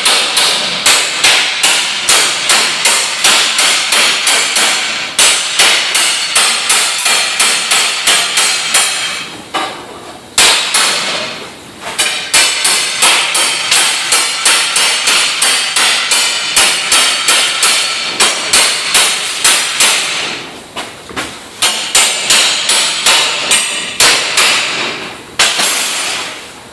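Hammer striking a steel plate in steady runs of about two to three ringing blows a second, with a few short pauses between runs.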